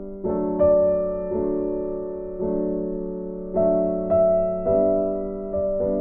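Background music: gentle piano-like keyboard notes and chords, a new one struck roughly every second and each fading away.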